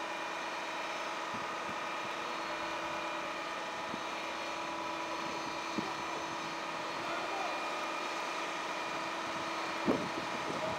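Steady drone of a Volvo FM aerial platform truck's engine running to power the boom as it is moved, with a short knock near the end.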